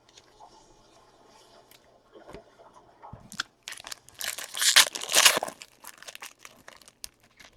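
A foil trading card pack being handled and torn open: light crinkling, then a loud burst of crinkling and tearing about four to five and a half seconds in, followed by a few small crackles.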